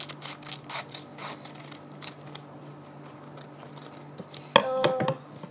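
Scissors snipping through a paper mailing envelope, a quick run of crisp cuts about four a second for the first couple of seconds. Near the end comes a brief, loud pitched sound.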